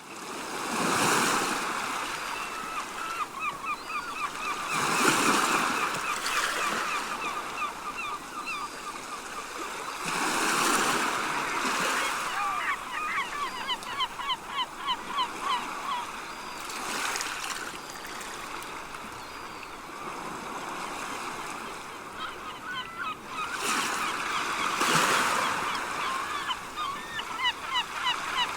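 Sea waves washing in every few seconds, with a flock of seagulls calling over them in a steady stream of rapid, short cries.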